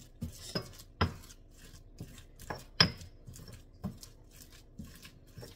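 Pestle pounding and mashing saba bananas in a heavy black mortar: irregular knocks of the pestle against the mortar, two of them sharp and clinking, with soft squelching and scraping between them.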